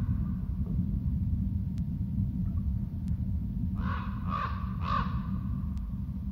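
Three short, harsh, caw-like bird calls in quick succession about four seconds in, over a steady low rumble.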